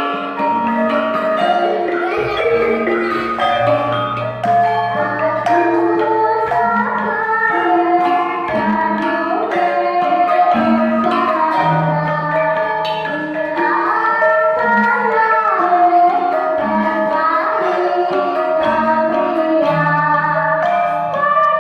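Javanese gamelan ensemble playing a lancaran: saron and bonang metallophones ringing out the melody while a kendang drum keeps the beat.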